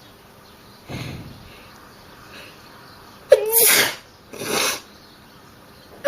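A person sneezing on purpose. About three seconds in there is a short voiced catch, then a sharp, loud burst of breath. A second, shorter breathy burst follows a moment later.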